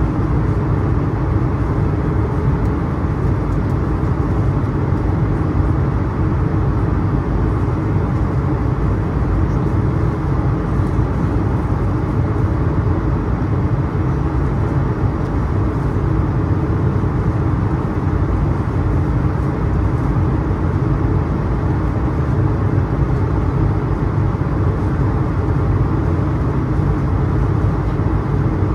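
Steady in-flight cabin noise of an Airbus A220-300: a constant rumble of airflow and the Pratt & Whitney PW1500G geared turbofan engines, with no change in pitch or level.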